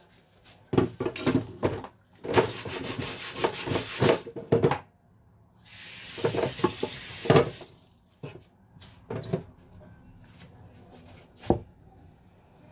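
Kitchen handling sounds: rubbing, clattering and knocking of utensils and containers in irregular stretches. A sharp knock near the end is a plastic container being set down on the counter.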